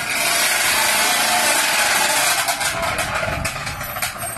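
Racing motorcycle engine revving hard, a loud raspy sound held steady for about two and a half seconds, then breaking into short, uneven blips.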